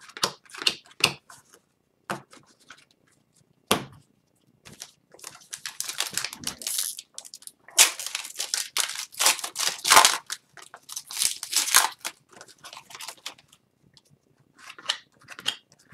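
A pack of Upper Deck hockey cards being crinkled and torn open by hand: a dense run of crackling, tearing wrapper noise in the middle, with light clicks and flicks of card handling before and after.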